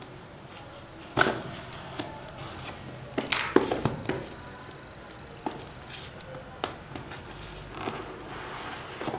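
Handling and opening a cardboard product box: a run of sharp knocks, clicks and rustles of packaging, loudest about a second in and in a cluster around three to four seconds in, then scattered lighter clicks.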